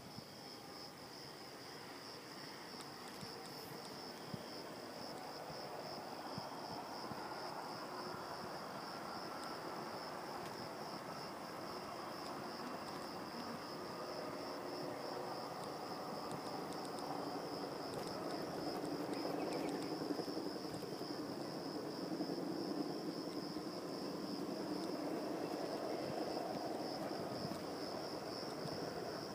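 Crickets chirping in a steady, high, finely pulsing trill, over a broad rushing noise that grows louder through the second half.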